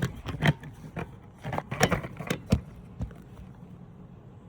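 A run of sharp, irregular clicks and knocks, like handling of tools or metal parts, over the first two and a half seconds, then only a faint steady background.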